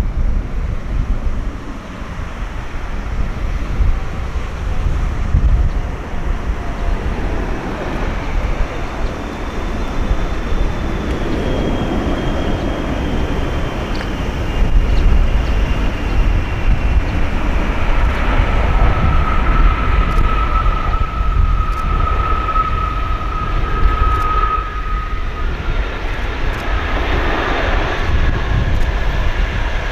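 Boeing 777-300ER's GE90 turbofans whining on landing approach, the whine tones slowly falling in pitch as the airliner passes, over a steady low rumble of wind on the microphone.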